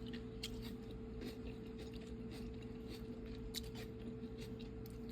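A person quietly chewing a mouthful of crab salad, with a few soft mouth clicks, over a steady low hum.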